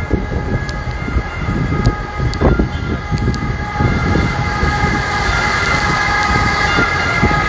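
Bus engines and traffic running, with a steady high whine of several fixed pitches that grows louder about halfway through as a city bus is passed close alongside, over an irregular low rumble.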